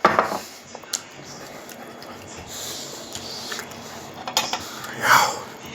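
Cutlery and a plate clinking during a meal: a few sharp clicks and knocks, with two louder short noises at the start and about five seconds in.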